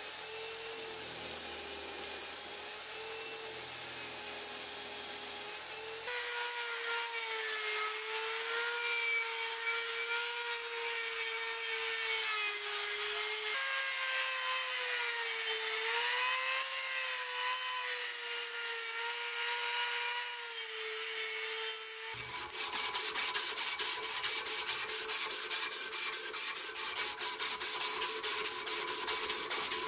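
A high-speed rotary tool with a sanding drum grinds rust off the steel finger ring of a scissors half, its steady whine wavering slightly in pitch as it bears on the metal. About two-thirds through, this gives way to a fast, rhythmic rasping as an abrasive strip is pulled back and forth around the ring.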